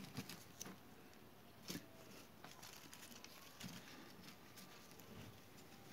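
Faint rustling of thin paper strips being handled and laid together, with a few soft ticks, the sharpest a little under two seconds in.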